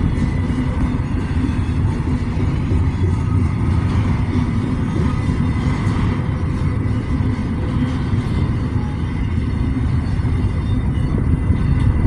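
A freight train rolling past at close range: a steady, loud rumble of locomotives and wheels on the rails, with a thin, steady high tone over it.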